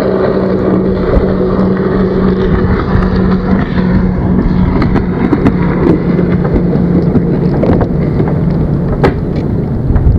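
Gusty wind rushing over the microphone above choppy lake water, with a steady low hum under it that fades out near the end and a sharp click about nine seconds in.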